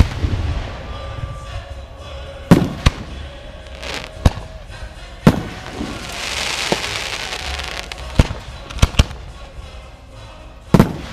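Aerial fireworks going off: about eight sharp bangs of bursting shells, some in quick pairs, with a hissing crackle of falling stars a little past the middle.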